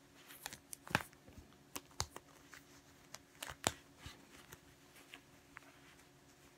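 Hands handling and gathering a crinkled shibori obiage sash: soft rustling of the fabric with scattered sharp clicks, the loudest about a second in, at two seconds and near three and a half seconds.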